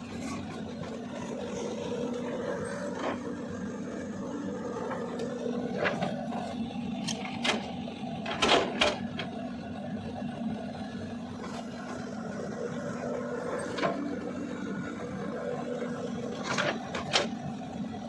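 Diesel engine of a Cat 320D L long-arm excavator running steadily while it digs reservoir mud, with a string of sharp knocks and clanks over it. The loudest knocks come about halfway through.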